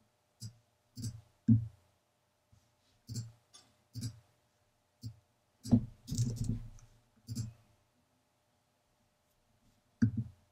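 Computer mouse clicks and a short run of keyboard typing: about a dozen separate sharp clicks, with a quick cluster of keystrokes about six seconds in.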